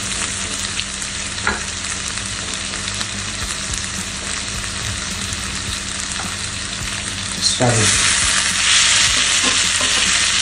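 Marinated chicken breast frying in melted butter in a pan, a steady sizzle that turns sharply louder about three-quarters of the way through. The chicken has just started cooking.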